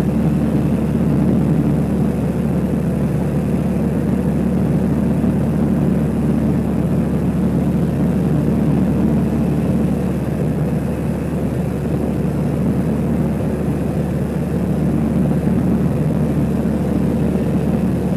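Kitfox light aircraft's engine and propeller running steadily in flight, a constant drone heard from inside the cockpit.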